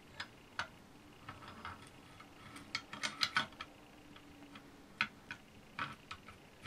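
Steel slide assembly (operating rod) of a Ruger Mini-30 being rotated by hand into place on the receiver and bolt: a scatter of light metallic clicks and scrapes, busiest about three seconds in.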